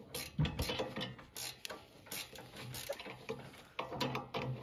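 Hand ratchet wrench clicking in short, irregular runs as a nut is turned.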